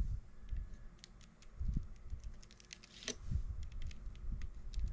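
A metal palette knife dabbing and scraping paint on poster board, making a string of light, irregular clicks and soft knocks.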